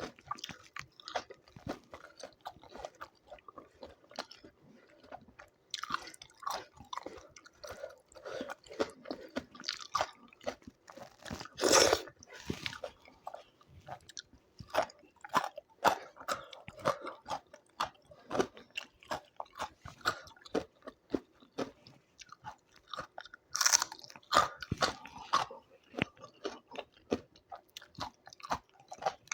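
A person eating up close: wet chewing and smacking with sharp crunchy bites, the loudest about a third of the way in and again near the end.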